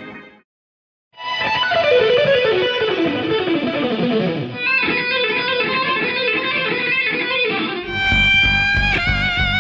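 Electric guitar playing a lick. After a brief gap it plays a fast run of single notes falling in pitch, then a busier passage of repeated notes, and near the end it holds sustained notes with wide vibrato.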